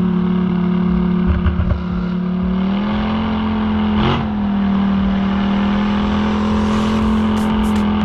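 An ATV engine running steadily under way, its pitch stepping up slightly about three seconds in, with a single sharp knock about a second later.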